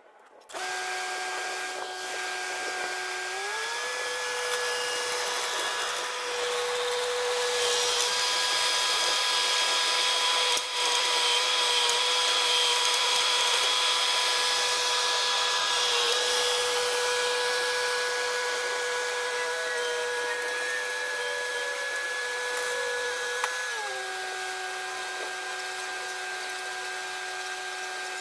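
Bobcat T66 tracked skid-steer loader running with a steady whine. The pitch steps up about three and a half seconds in as it revs up to move and lift a large oak log, holds there, and drops back about twenty-three seconds in as it throttles down.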